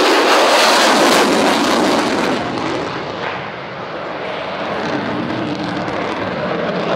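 Lockheed Martin F-35B Lightning II's single Pratt & Whitney F135 turbofan as the jet makes a close display pass in a hard turn: loud jet noise for the first two seconds, dropping off about three seconds in and carrying on more quietly as it pulls away.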